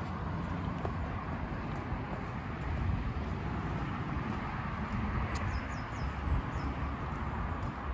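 Footsteps on a paved footpath while walking, with wind rumbling on the microphone.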